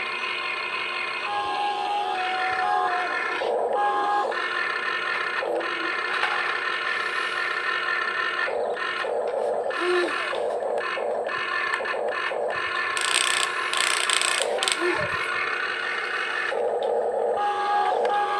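Huina 1592 RC excavator's electric gear motors whining as they slew the upper body and work the boom, arm and bucket. The whine starts and stops with each control input, with a short hissy stretch about two thirds of the way through.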